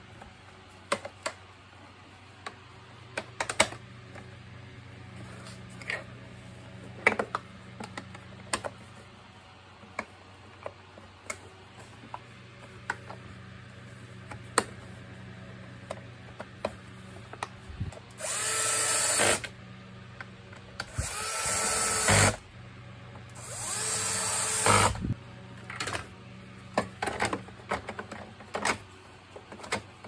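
Cordless drill-driver run in three bursts of a second or two each, its motor whining up to speed each time, while driving screws back into the vacuum cleaner's plastic housing. Scattered clicks and knocks of plastic parts being handled come between and before the bursts.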